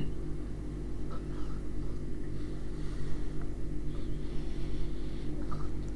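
Steady low background hum with a stack of even tones, with no other sound above it.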